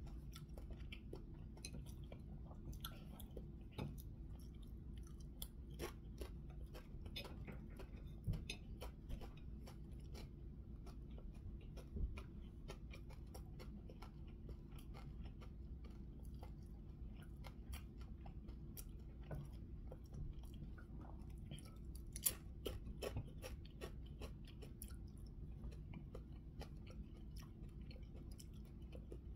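A person chewing food, with many small crunches and clicks scattered throughout over a steady low hum.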